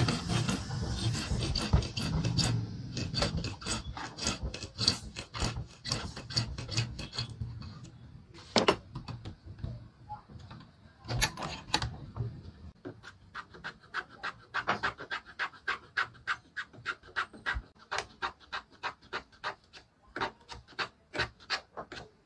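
Long hand file rasping back and forth over a small piece clamped in a bench vise, in repeated steady strokes. The strokes come about two a second at first, pause for a few single scrapes, then resume lighter and quicker, about three a second.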